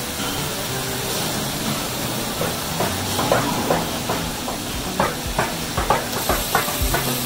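Bottling-line machinery running: a steady hiss, with sharp clacks from the capping machine and bottles knocking along the conveyor setting in a couple of seconds in and coming about two or three a second, louder toward the end.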